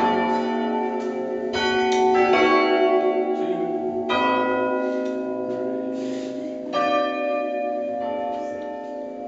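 Church bells being rung down: the back six of a light eight-bell ring (tenor about 8 cwt) striking unevenly as they swing lower, each stroke hanging on in long overlapping ringing. Strokes bunch together in the first couple of seconds, then come singly and further apart as the sound dies down.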